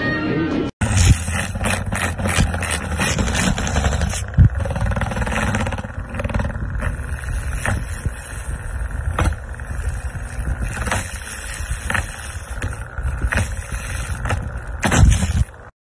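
Small electric desk fan running, its spinning blades buzzing and batting against a cat's face and fur, with scattered sharp knocks.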